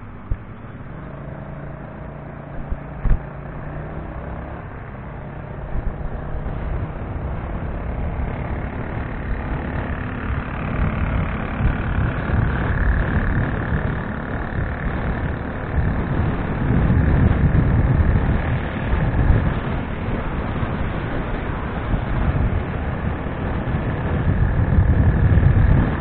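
Road traffic and a vehicle's own running and road noise, picked up by a dashcam microphone. The low rumble grows louder as it gathers speed, and a faint whine rises and then holds partway through.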